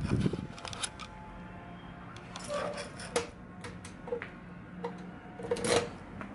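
Metal cluster-mailbox door being shut and locked with a key: a string of light metallic clicks and clatters, with keys jingling.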